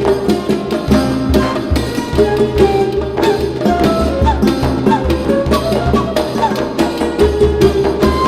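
Background music: a Middle Eastern-style cinematic track with a steady hand-drum rhythm under a winding melody.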